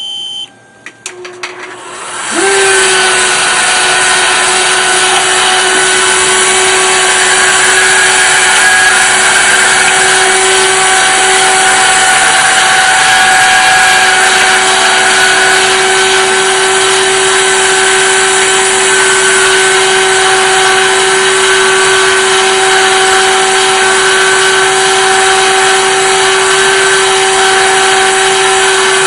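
Name Jewelry Solution 2 jewelry CNC machine starting up: a short beep and a few clicks, then the spindle spins up about two seconds in and runs steadily with a high whine while it cuts a name into the outside of a ring.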